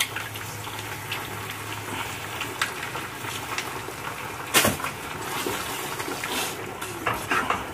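Pasta boiling in a frying pan of water on a gas stove, a steady bubbling hiss, with scattered light clicks and one sharp knock about four and a half seconds in.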